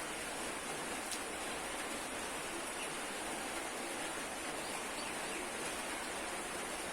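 Steady, even rushing noise with no pattern, with a single faint click about a second in.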